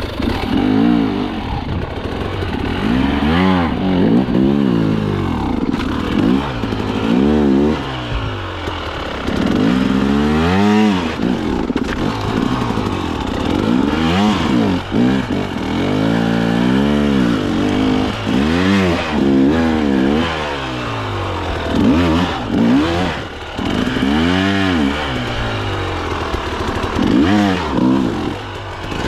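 Two-stroke KTM enduro dirt bike engine, revving up and dropping back again and again in irregular surges a second or two apart, the throttle worked hard as on a technical off-road climb.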